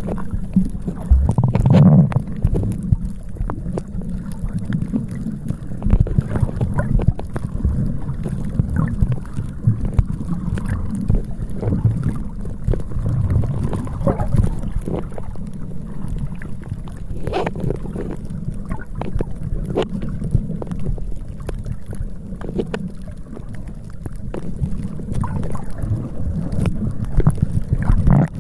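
Wind buffeting the microphone at the seashore: a loud, uneven low rumble that rises and falls, with sea water washing underneath.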